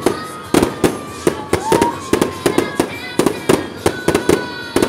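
Fireworks display: aerial shells bursting overhead in a rapid, irregular string of sharp bangs, about three a second.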